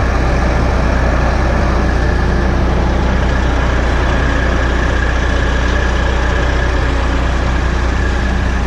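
Heavy diesel engines running steadily as a combine unloads corn into the grain truck alongside: a loud, even drone with a deep hum and a faint steady high whine.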